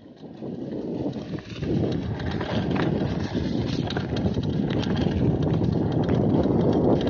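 Mountain bike descending a rough dirt-and-gravel trail: tyres rumbling over the ground, with frequent clicks and rattling knocks from the bike. It grows louder over the first two seconds as speed builds, then stays steady.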